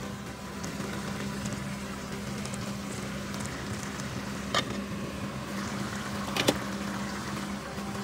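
Curry simmering in a steel pot on a gas hob, with a faint bubbling over a steady low kitchen hum. Two sharp clicks come about four and a half and six and a half seconds in.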